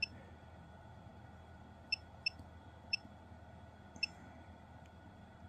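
Digital battery tester giving five short, high electronic beeps, one at the start and four more between about two and four seconds in, while it runs a cranking-amps and internal-resistance test on a 12 V motorcycle battery. A faint steady electrical hum lies underneath.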